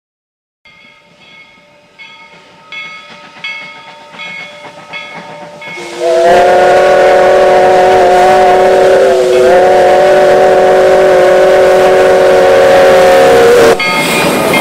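Steam locomotive's chime whistle blowing one long blast of several pitches together, lasting about seven seconds. Its pitch sags briefly in the middle and it cuts off abruptly near the end. Before the whistle, evenly spaced exhaust chuffs grow steadily louder as the locomotive approaches.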